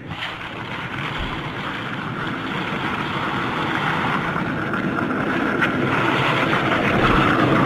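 Skateboard wheels rolling over pavement: a steady rushing, rumbling noise that grows gradually louder.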